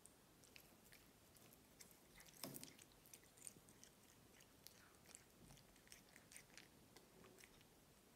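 Tabby cat biting off and chewing blades of cat grass: faint, quick crunching clicks, loudest about two and a half seconds in.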